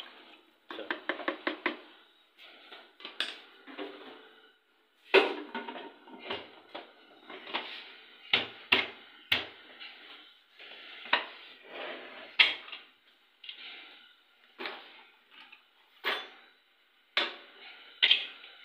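Aluminium cooking pots clattering: a wooden spoon knocks against a pot's rim and sides, and a pressure cooker's lid clanks as it is fitted and locked on. The result is an uneven string of sharp knocks and metallic clanks, with a quick run of light taps about a second in and several louder strikes after that.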